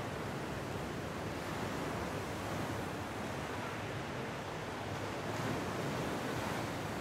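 Steady rushing noise of sea surf.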